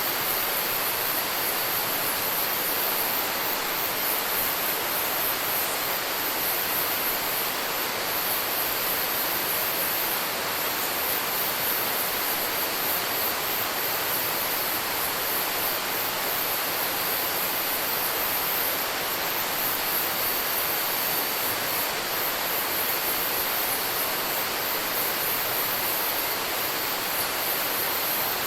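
Rainforest ambience: a steady rush of water under a high, pulsing chorus of insects.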